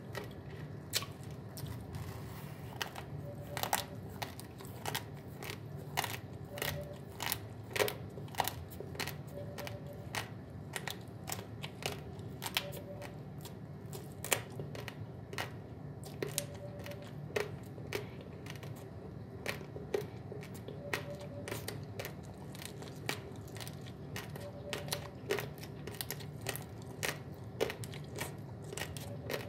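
Raw, uncooked basmati rice grains being chewed: an irregular run of sharp, dry crunches, a few each second.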